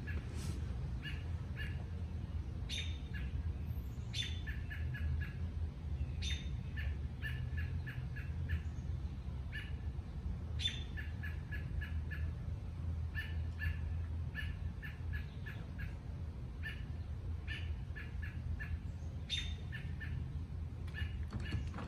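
A bird calling repeatedly: short phrases of quick chirps, each opening with a sharp higher note, coming every one to three seconds over a steady low rumble.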